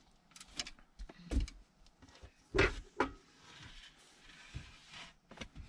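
Knocks and scrapes of wood as a plywood lid with rope handles is lifted off an under-bed storage compartment, with rustling in between; the loudest knock comes about halfway through.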